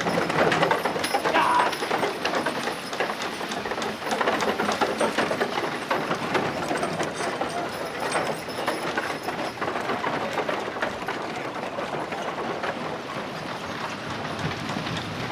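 Old West street ambience: a dense clatter of horse hooves and rolling carriage wheels, easing off slowly.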